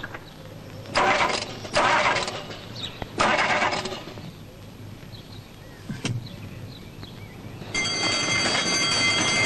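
A sports car's starter motor cranking in three short bursts without the engine catching: the car is out of fuel. From about eight seconds in, a level-crossing warning bell rings steadily.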